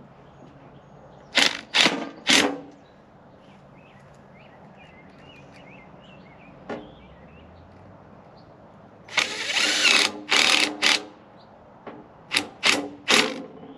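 Cordless drill driving wood screws through an aluminium sign into a wooden post, in short trigger bursts. There are three quick bursts about a second and a half in, a longer run of about two seconds around the middle, and three more short bursts near the end as the screws seat.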